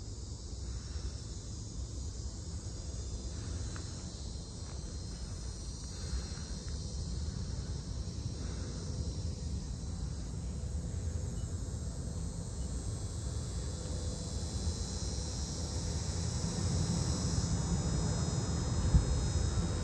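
Steady, high-pitched insect chorus over a low rumble; near the end the rumble grows louder as a van drives up.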